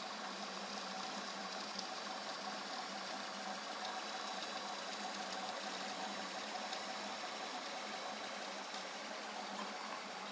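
Box-frame Prusa i3 3D printer printing at 85 mm/s: a steady mechanical hum and whine from its stepper motors moving the print head and bed, with the whir of the hotend's cooling fan and a few faint clicks.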